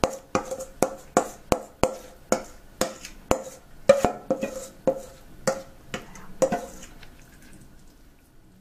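Glass mixing bowl knocking repeatedly against a ceramic baking dish, about two to three sharp knocks a second, as thick batter is scraped out of it. The knocks stop about seven seconds in.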